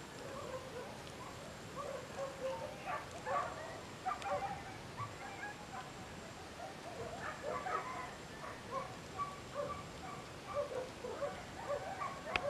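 Animal calls: many short calls scattered irregularly, several overlapping, over steady outdoor background noise.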